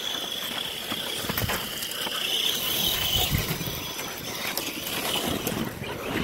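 Radio-controlled scale truck driving over gravel and onto a wooden ramp: a high electric motor-and-gear whine that swells about two and a half seconds in, with crunching tyres and scattered light knocks.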